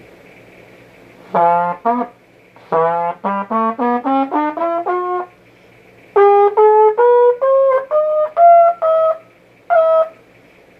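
A trumpet plays an F scale over its full range in short, separate notes. Two low notes come first, then the scale climbs note by note, pauses, and carries on higher, ending on a single high note near the end.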